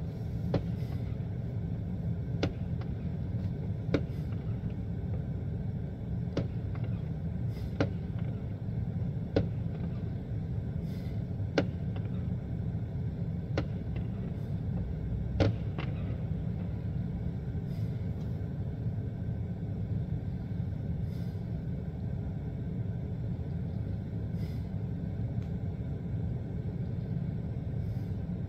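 Distant fireworks popping: about a dozen sharp single reports, one every second or two over the first half, the loudest about fifteen seconds in. A steady low rumble runs underneath.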